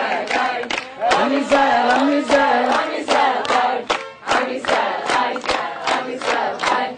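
A group of voices singing and chanting over a steady percussive beat of about three strokes a second.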